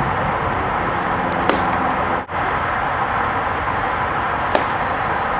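Two short, sharp pops about three seconds apart as pitched baseballs smack into the catcher's mitt, over a steady outdoor noise haze.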